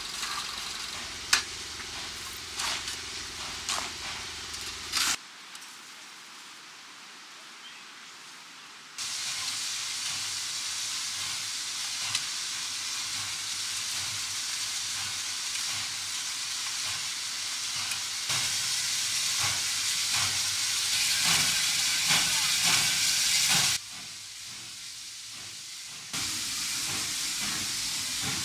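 Small steam locomotive hissing steam as it works along the track; the hiss gets louder about halfway through, then drops away briefly near the end. At the start, sharp clicks and scrapes of shovels on ballast stone over a steady engine hum.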